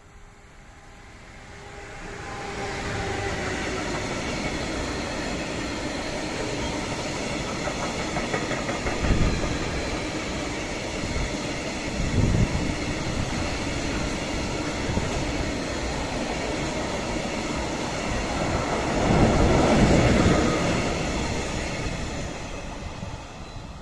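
A Siemens Vectron electric locomotive and a long train of tank wagons pass close by. The sound rises as the locomotive approaches about two seconds in, then holds as a steady rolling rumble and wheel clatter from the wagons, with a few louder bumps. It fades near the end as the train moves away.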